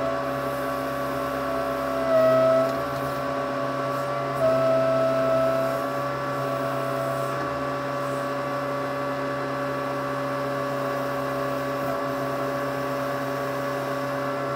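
Case 580C backhoe's engine running steadily, heard from the cab, with a whine that rises briefly about two seconds in and again about four and a half seconds in as the hydraulic boom is worked.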